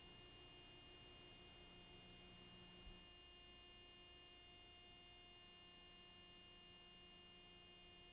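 Near silence: a faint steady electrical hum and hiss, the noise floor of a blank recording, with one small click about three seconds in.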